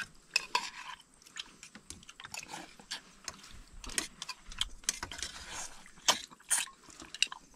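Someone eating: irregular crunching and chewing, with scattered sharp clicks.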